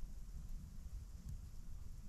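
Blizzard ambience: wind rumbling unsteadily in gusts, with a faint high hiss and a few faint ticks over it.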